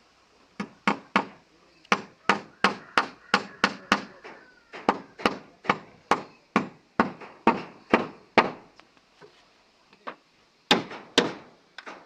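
Repeated hammer blows at about three a second, in runs of several strokes broken by short pauses, each blow sharp with a short ring.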